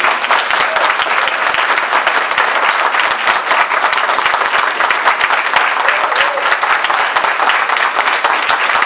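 A roomful of audience members clapping steadily in sustained applause.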